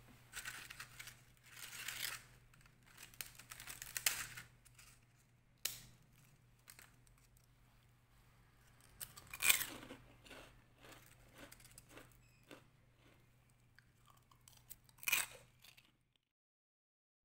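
Crisp fried kembang goyang rose cookies crunching and crackling in short, quiet bursts a few seconds apart, with scattered clicks in between.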